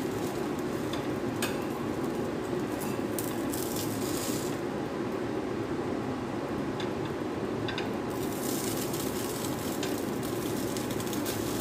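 Bread frying in ghee on a flat pan, a steady sizzle with a few light clicks of a metal spatula against the pan as the slice is lifted and turned.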